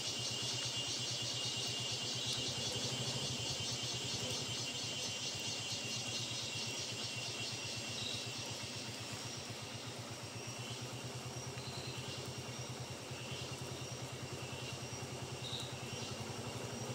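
A vehicle's engine idling steadily, with a high, pulsing insect drone over it that is strongest in the first half.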